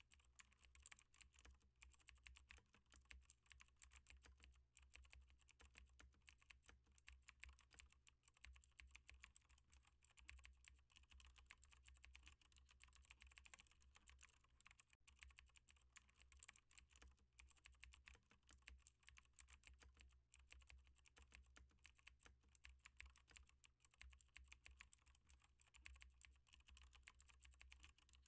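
Faint computer keyboard typing: a continuous run of quick key clicks, over a steady low hum.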